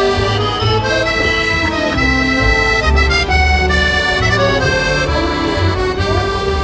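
Background music: a melody of held notes over a low bass line.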